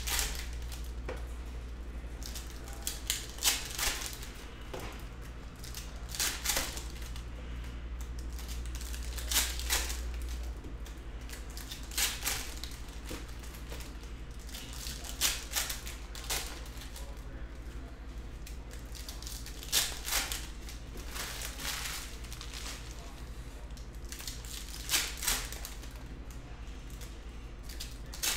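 Trading-card packs being torn open and handled, with short sharp crinkling rips, often two close together, every few seconds. A steady low hum runs underneath.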